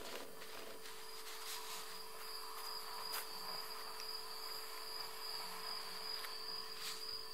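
A cricket trilling steadily on one high pitch, starting about two seconds in, over a faint steady low hum, heard through a television's speaker.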